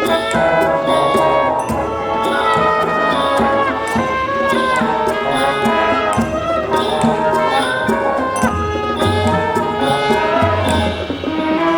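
Marching band playing, with brass and woodwinds holding and moving through a melody over regular percussion hits.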